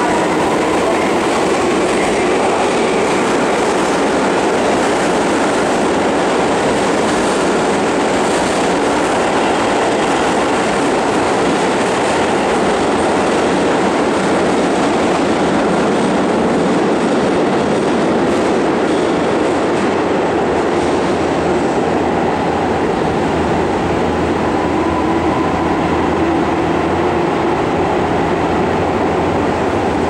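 Tobu 9000 series electric commuter train pulling out of an underground station. Its traction motors whine up in pitch over the first few seconds, then the wheels rumble steadily on the rails as the cars run past and off into the tunnel.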